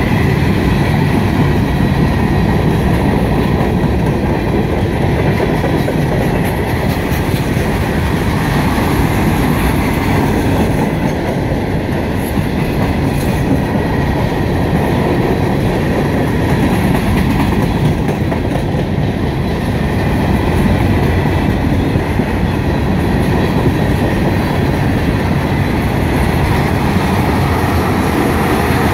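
Freight cars (tank cars and covered hoppers) rolling steadily past at close range: a loud, continuous noise of steel wheels running on the rails.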